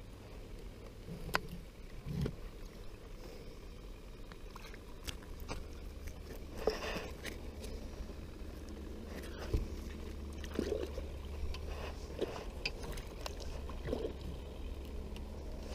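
A crappie being handled, strung on a rope stringer and lowered over the side of a small boat: scattered clicks and knocks against the boat and small splashes of the fish in the water, over a faint low hum.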